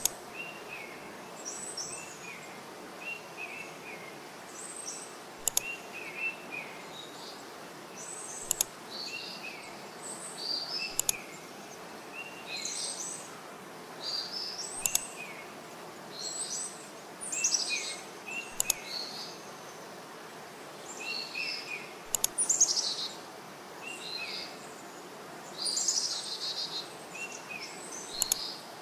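Small birds chirping in short repeated phrases over a steady hiss, with occasional sharp clicks.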